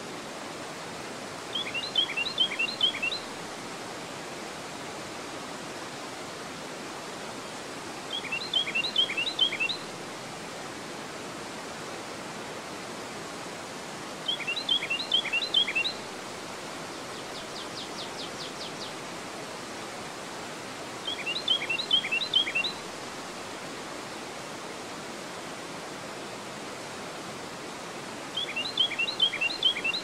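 Water rushing steadily over a low dam's spillway, with a songbird singing a short phrase of quick high notes, louder than the water, five times about every six and a half seconds. A fainter buzzy trill comes once, about halfway through.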